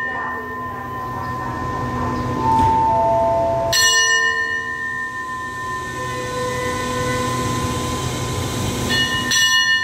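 Metal station bell struck twice, about four seconds in and again near the end, each strike ringing on for seconds with several clear tones. It is the departure signal for an express train at a Thai railway station, given while the officer flags the train.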